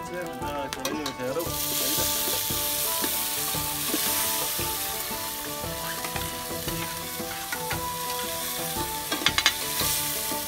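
Chopped tomatoes going into hot oil in a steel pot over a wood fire, sizzling from about a second and a half in as they are stirred, with a few ladle clinks against the pot near the end.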